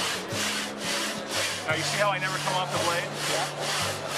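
A hand tool cutting wood in quick back-and-forth strokes, about two to three strokes a second, as a board is worked in a rail-guided jig.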